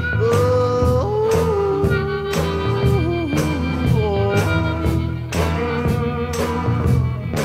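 Acoustic blues instrumental passage: a held lead line bending and sliding between notes over a repeating guitar riff with a steady beat, no singing.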